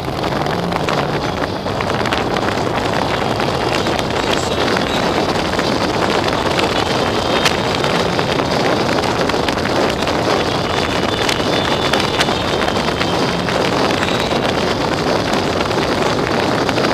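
Steady wind noise buffeting the microphone of a motorcycle-mounted camera at road speed, with the motorcycle's engine running steadily underneath.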